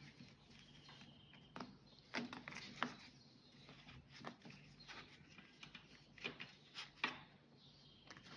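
Faint rustles and a scattering of soft ticks from 4 mm macramé cord being handled and pulled into a knot by hand.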